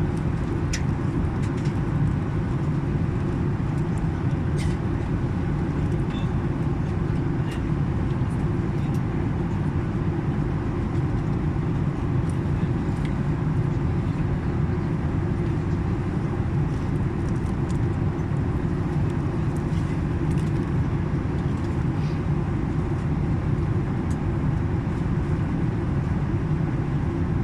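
Steady low roar of a passenger airliner's cabin in flight, engine and airflow noise, with a few faint clicks.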